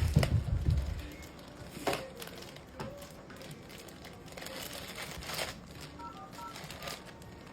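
Handling noise from an unboxing: low thumps in the first second, then a few sharp rustles and clicks. Near the end comes a short run of quick electronic beeps, like keypad tones.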